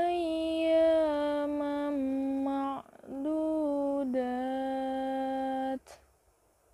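A woman's solo voice chanting Quran verses in the melodic tilawah style: two long held phrases, each sliding gently down in pitch in small steps, with a quick breath between them about three seconds in.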